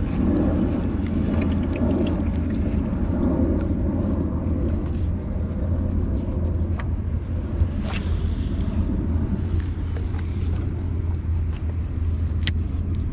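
Small outboard motor on a fishing skiff running steadily at low speed, a constant low hum and rumble, with a few light clicks over it.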